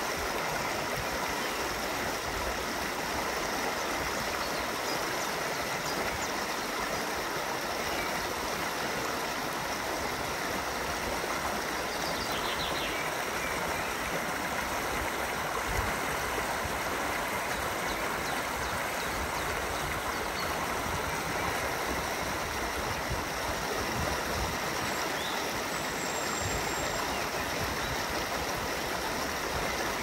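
A forest stream running with a steady, even rush of water. A few faint high chirps come through over it about halfway and near the end.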